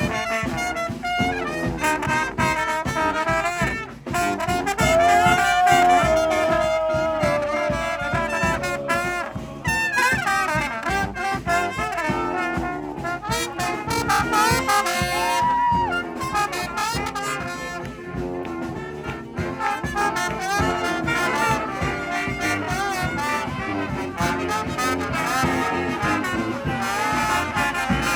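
Street brass band playing an instrumental tune, several horns in harmony, with a long, slightly falling held note about five seconds in.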